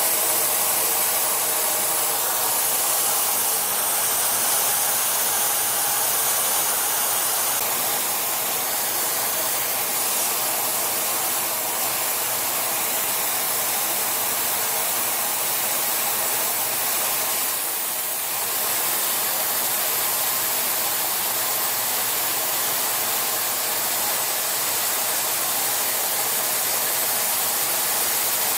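Metal-spray (thermal spray) gun hissing steadily as it sprays molten metal onto a worn screw-compressor shaft to build it back up.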